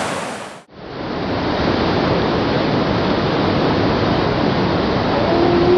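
Steady rush of whitewater rapids, broken by a brief drop-out about half a second in; a drawn-out pitched call begins just before the end.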